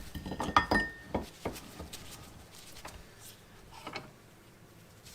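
Metal tools clinking and knocking as they are handled and set down, with a short metallic ring about a second in, then a few lighter taps.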